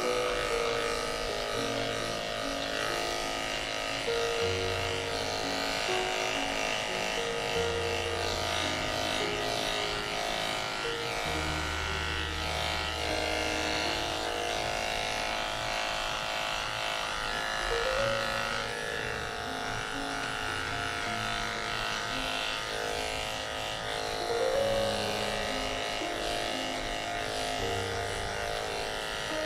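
Corded electric dog grooming clippers with a #10 blade buzzing steadily as they shave a dense mat off close to the skin, with background music underneath.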